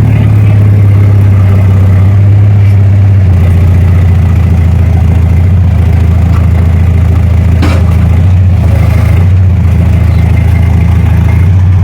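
Forklift engine running steadily and loudly while it moves a heavy fifth-wheel RV, with a brief click about eight seconds in.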